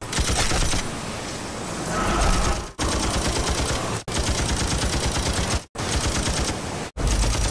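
Machine gun firing in long rapid bursts, broken off several times by sudden short cuts.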